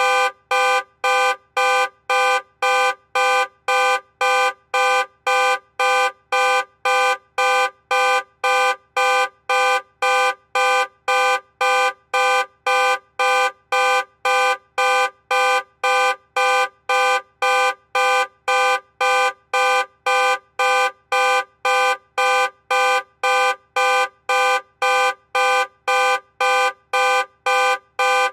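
Car alarm sounding the car's horn in loud, short honks at an even, unchanging rhythm of a little under two a second.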